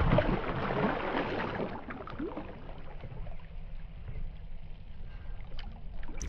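A large hooked mrigal carp thrashing at the surface, splashing hard for the first two seconds or so. Then come softer sloshing and swirling as it turns just under the water.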